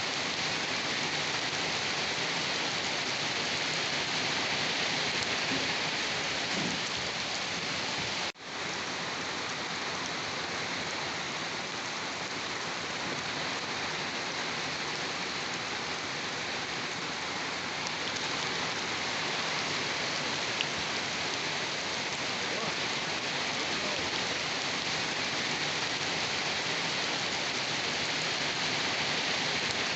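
Steady rain falling on a surface, an even hiss that drops out for an instant about eight seconds in.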